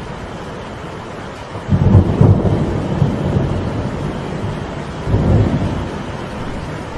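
Steady rain with a loud roll of thunder breaking in suddenly about two seconds in and slowly fading, followed by a second, shorter rumble about five seconds in.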